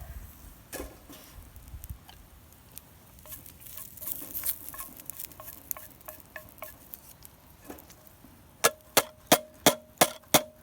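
Scattered small clicks and rustling of camp cookware, then about seven quick metallic clinks near the end, each leaving a short ringing tone: a utensil tapping against a small metal camp pot.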